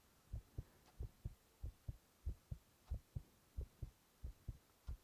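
A person's heartbeat recorded close up: steady paired lub-dub thumps, about one and a half beats a second.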